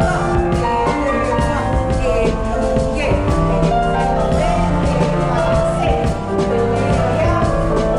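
Background music: a song with a steady beat, instruments and some singing.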